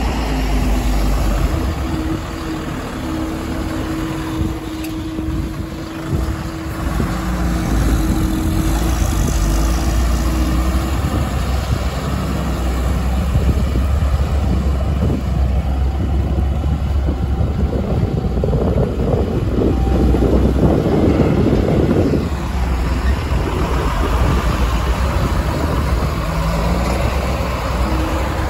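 Diesel engines of a JCB backhoe loader and tipper trucks running steadily, with a louder, rougher stretch about two-thirds of the way in.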